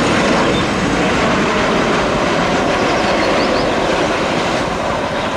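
Boeing 737-800 airliner's twin turbofan engines at takeoff thrust: a loud, steady roar as the plane lifts off the runway.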